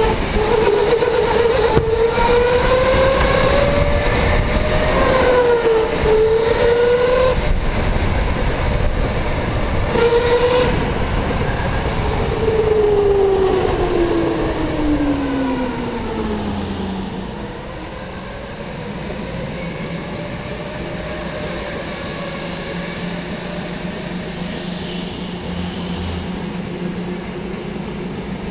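Electric go-kart motor whining under the driver, its pitch rising and dipping with speed through the corners. About halfway through the whine falls away steadily as the kart slows, leaving a quieter steady low hum.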